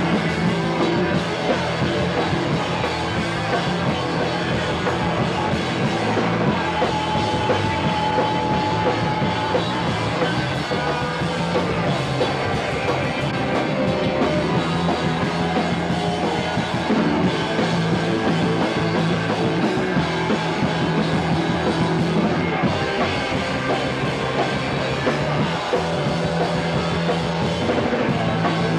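Loud punk rock music with a full drum kit playing steadily throughout.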